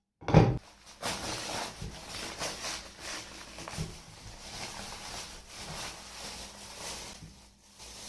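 A loud thump just after the start, then continuous eating sounds of a shawarma being bitten and chewed, full of small crackles.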